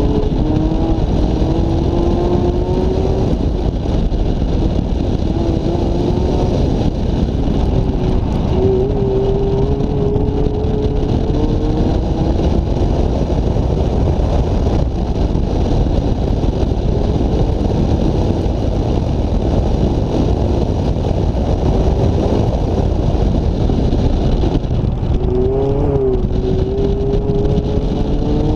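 Mazda MX-5 Miata (ND) four-cylinder engine under hard driving, its pitch rising several times as it accelerates and dropping as it lifts for the cones, over heavy wind buffeting on an outside-mounted microphone.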